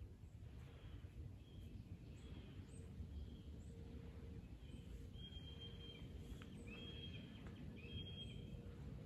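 Faint outdoor ambience: a steady low rumble with thin, high bird calls over it, several short notes and then three longer held whistles in the second half.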